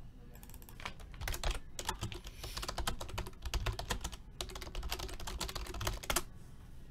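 Fast typing on a computer keyboard: a quick, uneven run of key clicks that stops about a second before the end.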